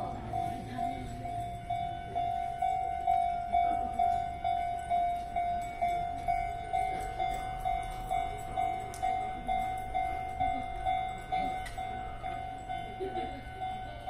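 Japanese railway level-crossing alarm ringing, an electronic bell tone striking evenly about twice a second, the warning that a train is approaching the crossing.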